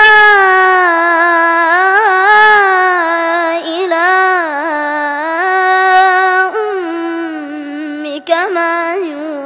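A young boy's solo Quran recitation in a melodic tajweed style: one long held phrase of about six seconds, his high voice rising and falling in ornamented turns, then a short break and further shorter phrases near the end.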